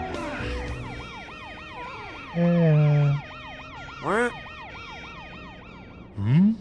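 Emergency-vehicle siren in yelp mode, its pitch sweeping up and down about three times a second throughout. A few louder, short low tones break in over it: one stepping down in pitch about two and a half seconds in, a quick rising one about four seconds in, and another rising one near the end.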